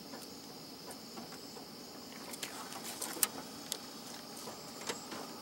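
A few sharp clicks and taps of a pickerel being unhooked with pliers and laid on a ruler in a boat, the sharpest a little over three seconds in, over a faint steady high hiss.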